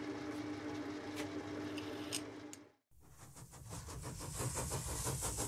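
Metal lathe running a facing cut on a small eccentric sheave: a steady motor hum with faint cutting clicks, fading out about two and a half seconds in. After a brief silence, an end-card sound effect comes in: a rising hiss with rapid mechanical ticking.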